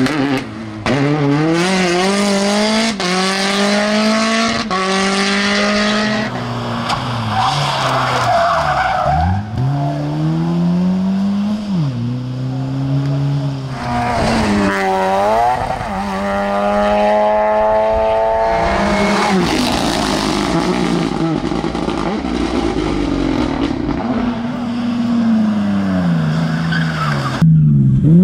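Rally cars at full throttle on a tarmac stage, one after another: engines revving hard and climbing in pitch, dropping sharply at each gear change and lift-off, then climbing again.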